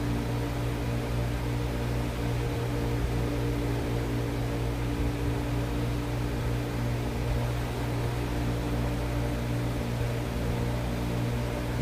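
A steady low machine hum with several steady tones, unchanging throughout.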